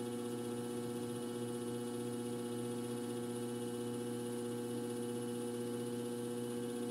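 Electric potter's wheel running with a steady low electrical hum that does not change.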